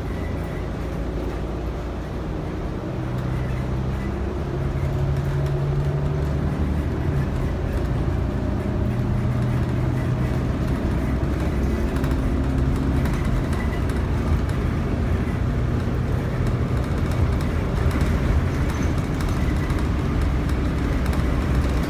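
New Flyer transit bus driving at road speed, heard from inside the cabin: a low engine and drivetrain drone over tyre and road noise. The drone's pitch shifts up and down a few times, and it gets louder over the first several seconds.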